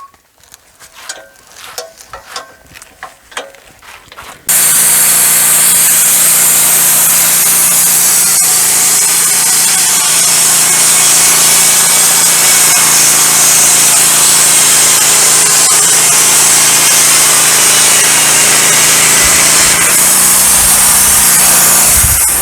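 Scattered knocks and clatter from handling, then, about four and a half seconds in, the Woodmizer LT15 Go sawmill starts running abruptly: a loud steady machine noise with a strong high hiss, easing slightly near the end.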